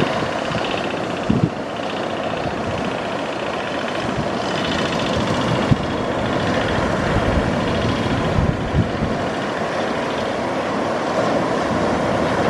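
Wind buffeting the microphone over the steady wash of surf on a sandy beach, with a few sharp gusts.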